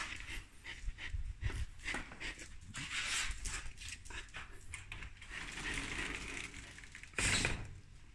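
Samoyed dog panting, with scattered small clicks, and a louder brief rustle about seven seconds in.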